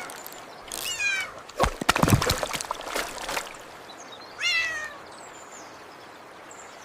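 Kittens meowing: short, high calls that fall in pitch, three times. Between the first two calls and the last one comes a rapid flurry of knocks and thumps.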